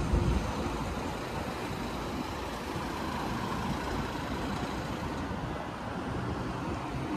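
Steady road traffic noise, a continuous low rumble of passing and idling vehicles.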